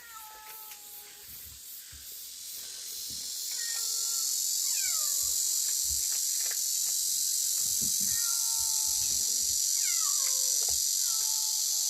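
Short, high, falling kitten mews repeat every second or two over a steady high-pitched insect drone, which swells about three to four seconds in and becomes the loudest sound.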